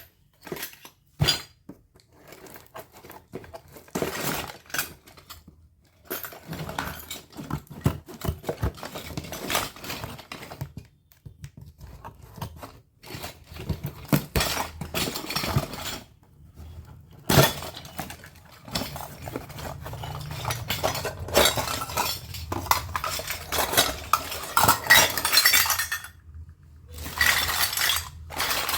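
Miniature toy kitchen pieces (tiny dishes, pots and utensils) being handled, clinking and clattering against each other in stretches of small knocks, with short pauses between handlings.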